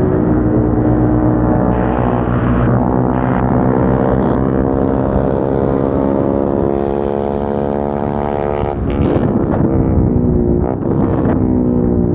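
Single-cylinder motorcycle engine with an aftermarket exhaust running at steady cruising revs. Its pitch sags slowly, breaks up briefly about nine seconds in, then climbs again and holds.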